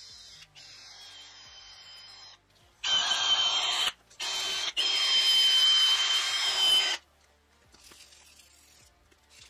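Cordless drill spinning a wire wheel brush against the cast-iron differential housing of a GM 9.5-inch 14-bolt axle, scouring the bearing area clean: a steady whine with scraping. It runs in a short burst of about a second, then a longer one of nearly three seconds, and stops about seven seconds in.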